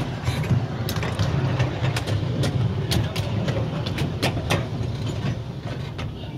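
Miniature railway carriage running along the track: a steady low rumble of wheels with irregular sharp clicks as they pass over the rail joints, getting quieter near the end.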